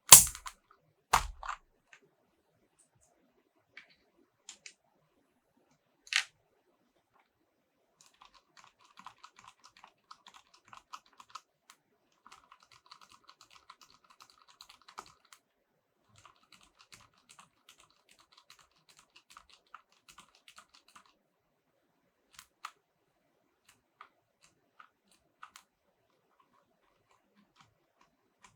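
Typing on an EVGA Z15 mechanical keyboard with silver linear switches. There are a couple of loud sharp key strikes near the start and another at about six seconds, then a fast steady run of keystrokes for about thirteen seconds, thinning to scattered single presses near the end.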